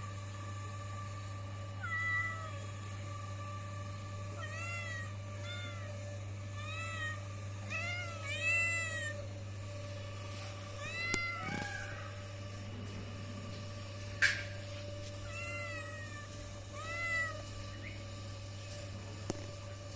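Kitten meowing, a string of short, high meows, some in quick pairs, over a steady low hum, with one sharp click about fourteen seconds in.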